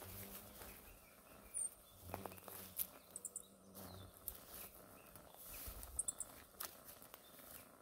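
Faint footsteps on a straw-covered dirt trail, with short, high chirps every few seconds, some in quick triplets.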